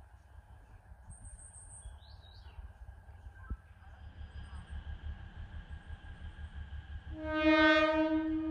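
Alishan Forest Railway train sounding its horn in one long, steady blast starting about a second before the end, over the low rumble of the approaching train. Birds chirp briefly about a second in.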